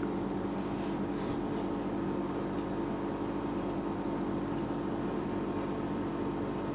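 A steady low hum with a fixed tone that does not change, with a few faint light rustles about one to two seconds in.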